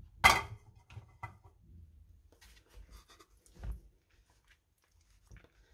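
Silicone spatula knocking against a glass mixing bowl, one sharp knock with a brief ring a moment in, then softer scrapes, clicks and a dull thump as mascarpone is scraped off into the flour and cheese.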